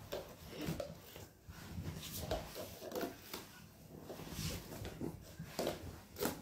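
Red plastic party cups tapping and clicking against each other and the glass tabletop as a cup pyramid is taken down and nested back into stacks: a string of light, irregular clacks.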